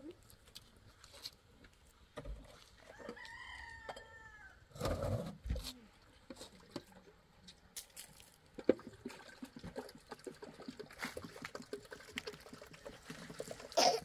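A rooster crows once, about three seconds in, a single arched call lasting about a second and a half. A louder low thump comes about five seconds in, followed by scattered light knocks and clicks.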